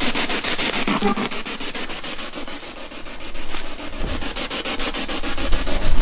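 Rustling and scratching of tall weeds and dry grass brushing against clothing and the handheld camera as people push through them on foot, with rubbing noise on the microphone.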